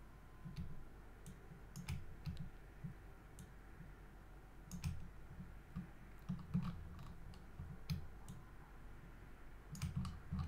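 Faint, irregular clicks from a computer mouse's buttons and scroll wheel, with soft low thuds among them.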